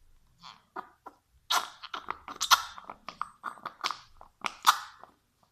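Fairy dish soap squeezed from its bottle into a flour-and-oil slime mix, coming out in a quick, irregular series of short sputtering squirts.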